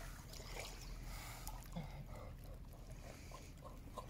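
Faint river water lapping and dripping around a person wading in shallow water, over a low steady rumble.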